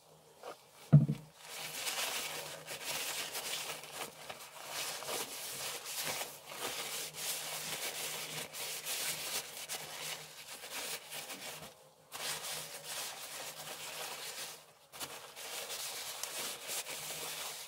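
A single thump about a second in, then a paper towel rubbing and crinkling steadily as it wipes medicinal paraffin onto a wooden screwdriver handle, pausing briefly twice in the second half.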